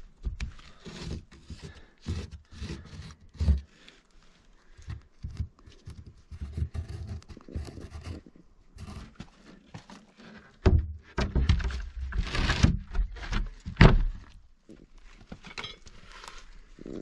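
Irregular knocks, thuds and scraping of hard objects, with the loudest thuds bunched in the second half.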